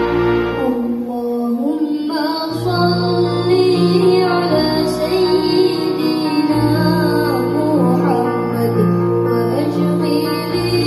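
A child singing solo over a live orchestra, with sustained instrument notes and a low bass line under the voice. The sung melody comes in about two seconds in and carries on over the accompaniment.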